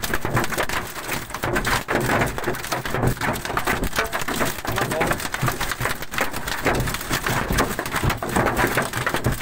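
Heavy hail pelting a car's roof and windshield, heard from inside the car as a dense, unbroken clatter of hard knocks. The impacts are cracking the windshield glass.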